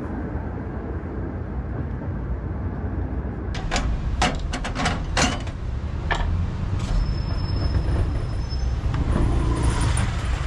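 Steady low background rumble, broken about three and a half seconds in by a quick run of about seven sharp clicks or clacks, with one more a second later.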